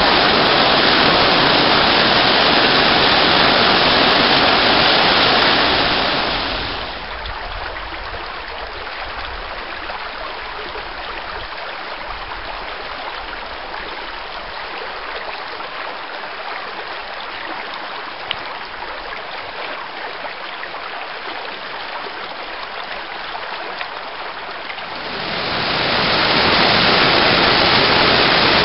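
Waterfall rushing steadily as it pours down a rock chute. After about six seconds it fades to the softer, lighter burble of a shallow creek running over stones, and the loud waterfall rush swells back in near the end.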